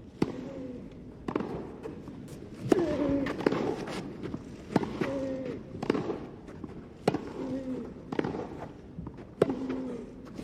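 Tennis rally: the ball is struck by rackets about once a second, back and forth, nine times. Just after about every other stroke comes a short vocal grunt, as from one player hitting.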